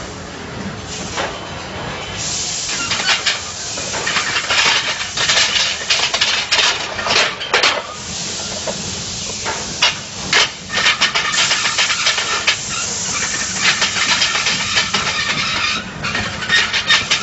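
Tyre factory machinery running: a steady hiss with irregular clattering and rattling over it, getting louder about two seconds in.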